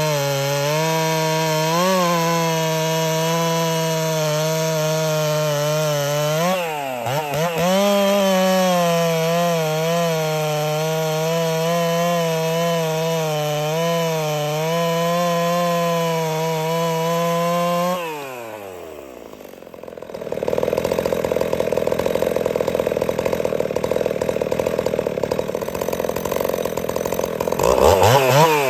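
Ported Husqvarna 61 two-stroke chainsaw running at full throttle in a cut, its pitch wavering under load and dipping briefly about a quarter of the way through. About two-thirds of the way in the throttle is released and the engine falls to a low idle, then revs back up near the end.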